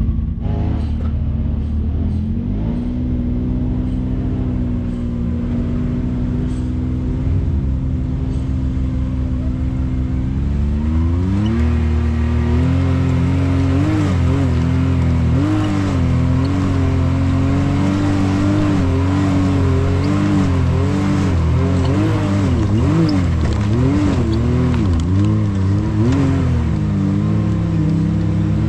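Side-by-side UTV engine running, fairly steady at first, then about eleven seconds in the revs climb and rise and fall over and over as the throttle is worked.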